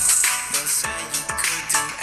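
A song with a steady beat and a deep kick drum about twice a second, playing out of the boAt Immortal IM-1000D gaming headphones held up to the microphone.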